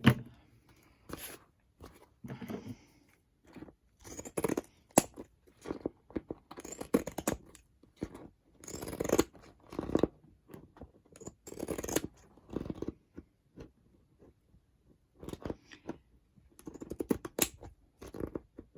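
Irregular snips, crunches and rustles of scissors cutting and handling paper and faux-leather craft material, in uneven bursts with short pauses.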